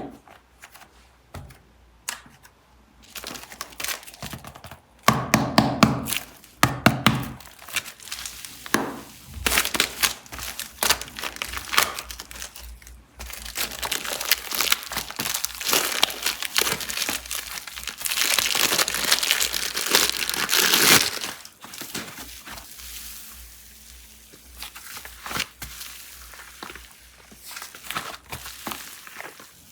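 Packaging for air-dry super clay being crinkled and torn open, with scattered taps and thunks of handling. The crinkling builds into a long, dense stretch through the middle and is loudest around two-thirds of the way in, then drops to quieter handling.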